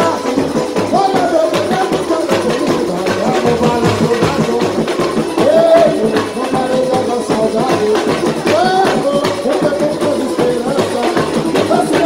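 Live samba band playing: surdo drums and hand percussion keep a dense, steady samba beat, with a sung melody over it.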